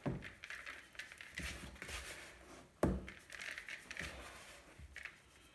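Hands rubbing suet into flour in a plastic mixing bowl: short, scratchy rustling strokes, repeated, with a sharp knock just under three seconds in.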